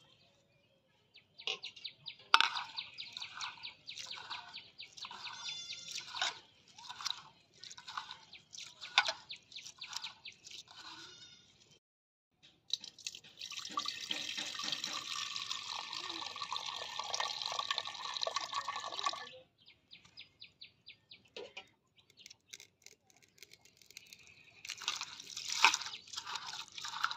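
Red lentils being rubbed and swished by hand in water in a steel bowl: regular squelching splashes, about one and a half a second. Midway the cloudy rinse water is poured off in a steady splashing stream into a metal pot for about six seconds, and the hand-washing starts again near the end.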